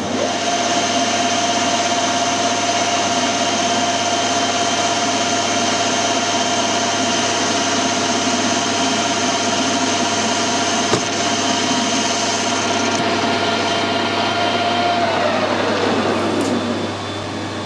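Metal lathe starting up just after the beginning and running with a steady gear whine while it takes a slow-feed finishing cut on a bush with a carbide tool. About 15 s in it is switched off, and the whine falls in pitch as the spindle runs down.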